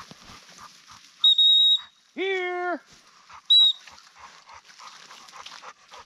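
Dog training whistle blown twice: a steady high blast of about half a second a little over a second in, then a short blast about two seconds later. It is the recall signal calling a dog back to the handler.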